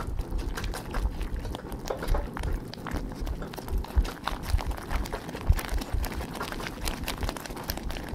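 Whisk working thickened custard cream as it cooks in a stainless steel saucepan: irregular wet squelches and plops, with small clicks as the whisk meets the pan. The cream is stiff and cooked through, being stirred hard so that the bottom and sides do not catch.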